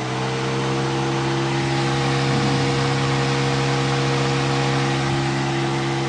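Toyota Avanza's electric radiator cooling fan, its new fan motor powered directly through a jumper across the fan relay socket, running steadily at full speed with a hum and a rush of air. It shows that the replacement fan motor works.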